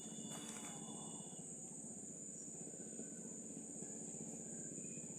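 Steady high-pitched insect chorus, like crickets, with a low steady drone underneath.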